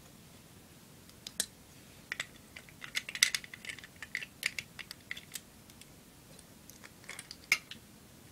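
Plastic Lego bricks clicking and rattling as they are picked out and pressed into place: scattered sharp clicks, busiest in the first half, with one louder snap near the end.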